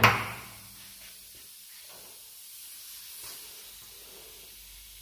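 Air impact wrench: a short burst ending right at the start, with a hiss that fades over about half a second. After that only a faint hiss and quiet handling of the split 9/16 socket are left.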